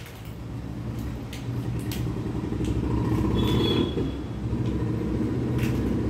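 A steady low motor rumble, with a few light clicks of jackfruit seeds being tossed and picked up off a tiled floor.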